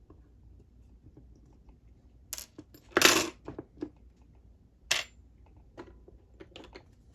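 Small metal parts and tools clinking and clattering on a hard surface as a Sargent lock cylinder is handled and taken apart. The loudest clatter comes about three seconds in, a sharp click follows near five seconds, and lighter clicks come after.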